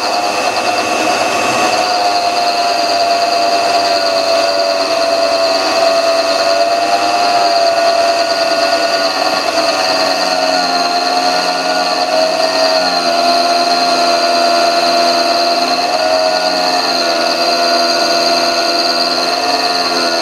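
Homemade tool post grinder and mini lathe running together, the grinding wheel taking a light pass across the 60-degree point of a spinning dead center. A steady motor whine whose pitch wavers slightly as the wheel rubs the steel.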